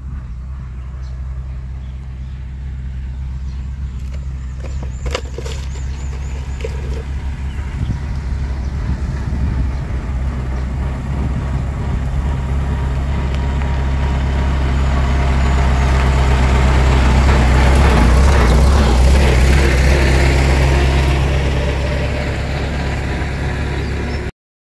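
Farm tractor engine running as the tractor drives up the dirt track towards the listener. It grows steadily louder to a peak a little past the middle, eases slightly, then cuts off suddenly near the end.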